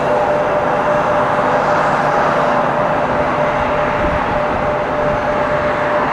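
Jet airliner engines running loud and steady, a continuous roar with a steady high whine over it.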